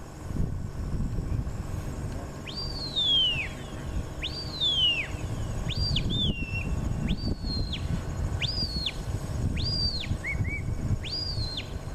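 A handler's shepherd's whistle giving repeated commands to a border collie working cattle: about seven similar high whistle blasts, one every second and a half or so, each rising sharply, holding, then falling away.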